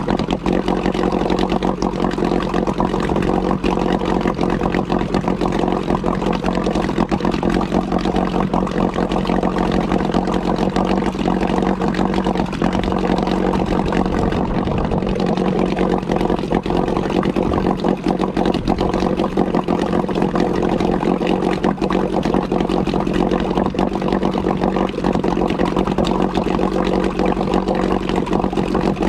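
Yamaha-built Mariner 8 hp two-stroke outboard motor running steadily on its stand, with no change in speed, after its first start from long storage.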